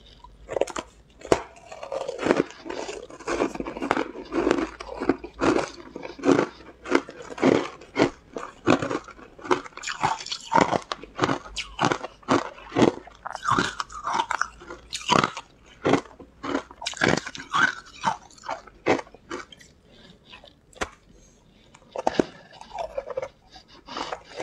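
Frozen ice pieces being bitten and chewed: a quick, irregular run of sharp crunches, with a short lull about three-quarters of the way through before the crunching resumes.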